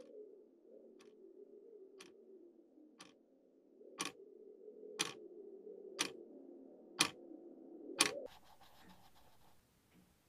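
A clock ticking once a second, the ticks growing louder, over a low wavering drone. About eight seconds in the drone stops and the ticking drops back to faint.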